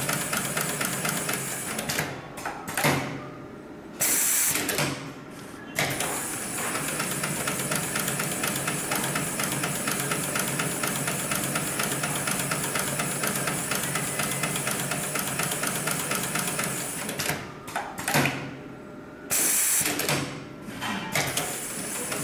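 Hightex GLK700-6040 automatic programmable pattern sewing machine stitching at high speed, a rapid even needle rhythm. The stitching stops twice, about two seconds in and again about seventeen seconds in, and each pause holds a short sharp hiss.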